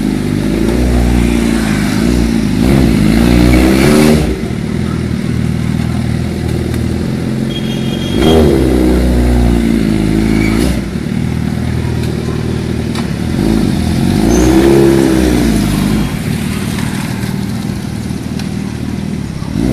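Engine of a large custom four-wheeled quad bike revved repeatedly at low speed, its pitch swinging up and falling back several times between steady running.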